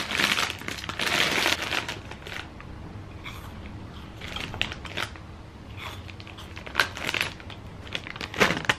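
Plastic crisp bag crinkling and crackling as it is pulled open, loudest over the first two seconds, then handled in short crackles.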